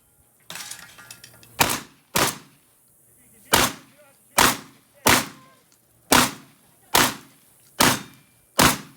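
Shotgun fired nine times in quick succession during a timed stage, roughly a shot a second, with one slightly longer pause after the second shot.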